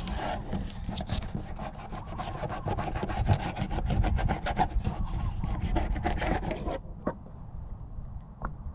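Knife sawing back and forth between the leathery skin and flesh of a rudder fish (nenue) fillet: a rapid run of short scraping strokes that stops abruptly about seven seconds in, followed by a couple of light taps.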